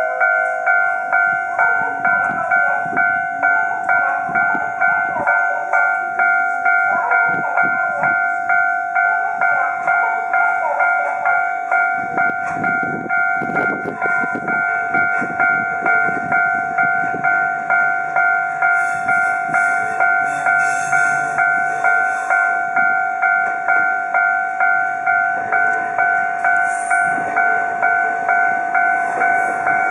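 Railway level-crossing warning bell ringing steadily at about two strikes a second, with a diesel railcar approaching faintly beneath it.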